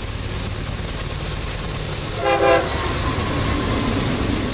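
Diesel freight locomotives, a GE C40-8W and a C40-9W, passing close by with a steady low rumble. About two seconds in, one short blast of a multi-note locomotive air horn.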